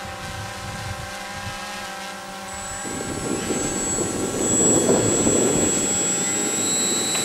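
Motor and propeller of a radio-controlled model, a steady whine of several tones. It grows louder from about three seconds in, with a rushing noise added.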